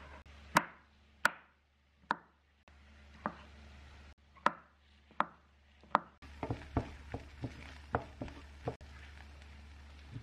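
Chef's knife slicing mushrooms on a wooden cutting board: sharp single knocks of the blade on the board about once a second, then a quicker run of lighter cuts in the second half.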